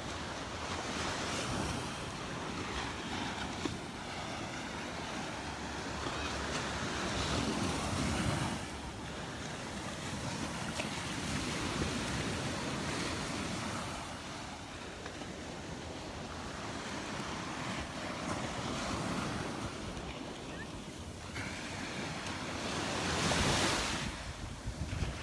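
Surf washing onto the beach, a steady rush that swells and eases as waves break, loudest near the end, with wind buffeting the microphone.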